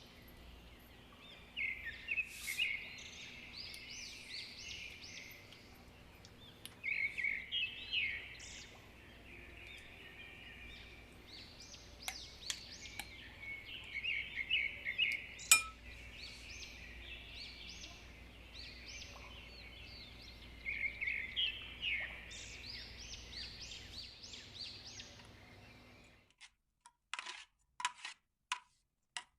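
Birds chirping in repeated quick bursts over a steady low hum. Near the end the hum cuts off suddenly, leaving a few sharp clicks.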